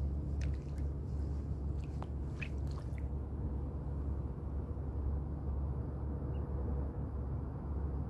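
Wind buffeting the microphone: a steady low rumble. In the first three seconds a few faint short wet drips and squelches come through.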